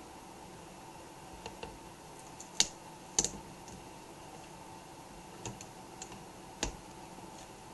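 Scattered small clicks and taps of a flat-blade screwdriver against the laptop's plastic screen parts as tape is pried off the display cable, about eight in all, the two loudest about two and a half and three seconds in.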